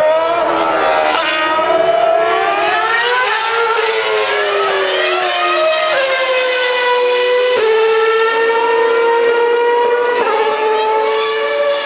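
Formula One cars' high-revving V8 engines running on track. The shrill note climbs and then drops sharply at each upshift, several times over, with more than one car heard at once.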